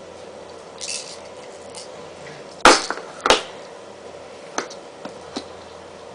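Two loud, sharp clacks about half a second apart near the middle, followed by three faint clicks, over a steady low hum.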